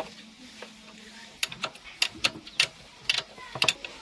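Steel ring spanner clinking against the top nut of a motorcycle front fork as it is fitted and worked: a run of sharp, irregular metal clicks that starts about a second and a half in.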